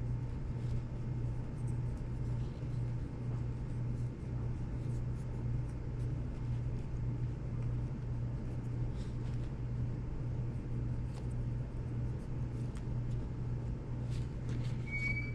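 Steady low hum with a faint higher tone held underneath, and a few faint clicks scattered through it.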